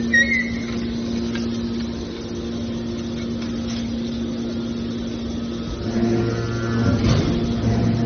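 Hydraulic can baler's power unit running with a steady hum; about six seconds in the sound shifts, with a lower hum joining in.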